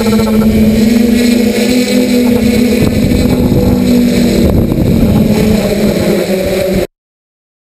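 Bergen R/C folding hexacopter's electric motors and propellers humming steadily as heard from its onboard camera, with wind buffeting the microphone. The sound cuts off suddenly about seven seconds in.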